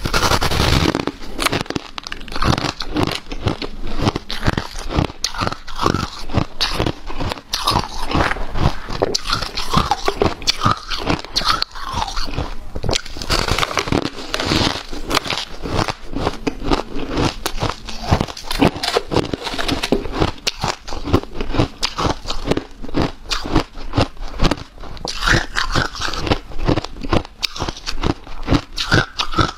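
Person biting and chewing powdery, snow-like ice, giving a dense, unbroken run of crunches.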